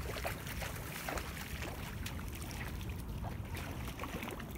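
Water splashing and sloshing in short irregular bursts, over a steady low rumble of wind on the microphone.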